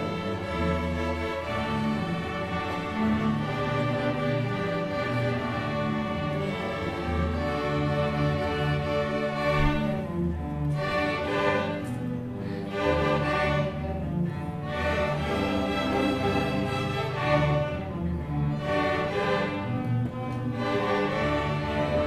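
String orchestra playing, with violins over cellos and basses. About halfway through, the high parts start coming in short phrases with brief gaps while the low strings carry on.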